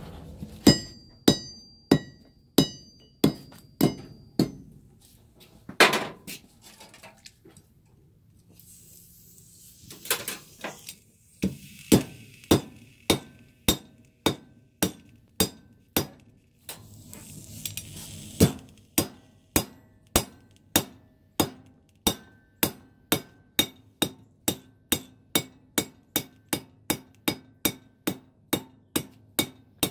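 Hand hammer striking a red-hot nail held in a nail header on the anvil, upsetting and forming the nail head: sharp, ringing metal blows. A short run at about one and a half a second is followed by a pause of several seconds, then a long, steady run that quickens to a little over two a second.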